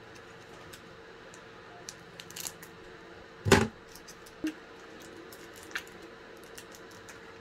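Small clicks and crinkles of a foil card-pack wrapper being cut and handled. About three and a half seconds in comes a single sharp knock as metal-bladed scissors are set down on a wooden tabletop. A few more light clicks of the wrapper follow.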